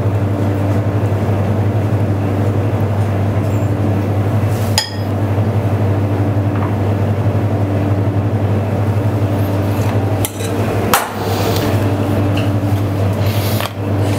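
A metal spoon clinks a few times against a stainless saucepan and ceramic bowl as crab meat is scooped out, over a steady low hum.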